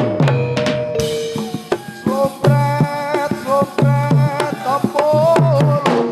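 Folk performance music: hand drums playing a steady pattern of low strokes that bend in pitch, with a wavering melody line entering about two seconds in.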